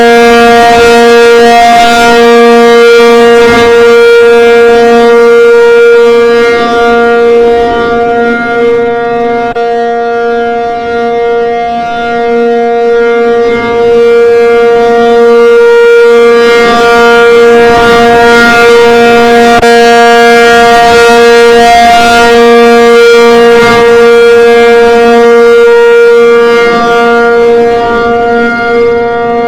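ACA P50 outdoor warning siren sounding a loud, steady held tone, its loudness dipping slightly about a third of the way in before rising again.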